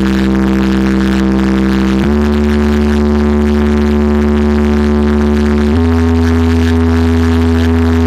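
Large DJ box loudspeaker stack playing a sound-check track of long held, bass-heavy synth tones. It steps up in pitch twice, about two seconds in and again near six seconds.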